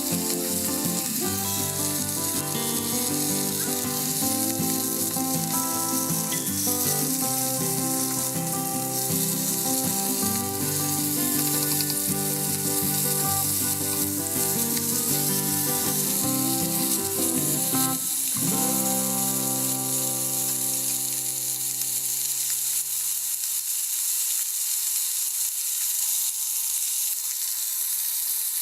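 Dried tilefish frying in oil in a pan, a steady sizzle throughout, with background music that fades out a few seconds before the end.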